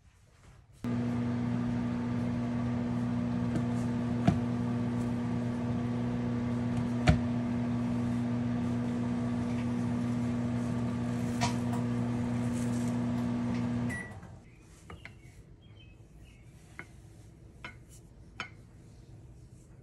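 Microwave oven running with a steady hum for about thirteen seconds, then stopping abruptly; a few light clicks and knocks follow.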